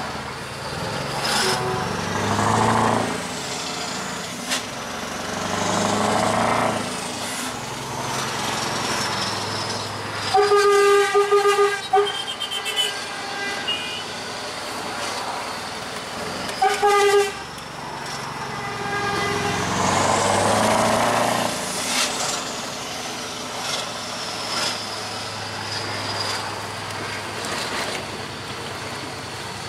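Scania R500 V8 truck engine running from inside the cab, its revs rising and falling a few times. About a third of the way in a truck air horn gives a run of short loud toots, and one more short toot follows a few seconds later.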